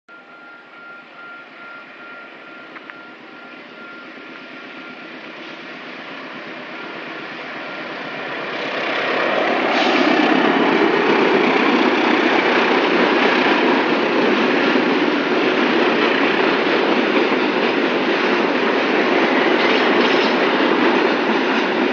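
CC 206 diesel-electric locomotive hauling a container freight train, approaching and passing close by: the noise grows steadily louder over the first ten seconds as the locomotive nears, then the container wagons rolling past keep it loud and steady.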